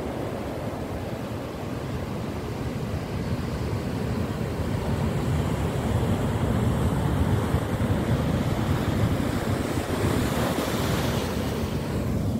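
Ocean surf breaking and washing up over rocks and sand. The surf swells louder a few seconds in, with a hissing wash of foam around ten seconds in.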